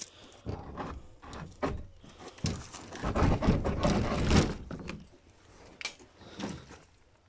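Rustling and scraping of a leather-sleeved denim jacket brushing against the phone, with a few sharp knocks, loudest from about three to four and a half seconds in.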